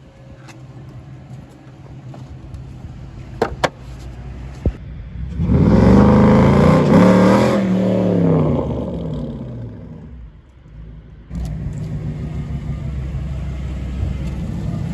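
Car engine, revving up and falling back over several seconds, then running steadily after a sudden start about two-thirds of the way in. A couple of sharp clicks come a few seconds before the revving.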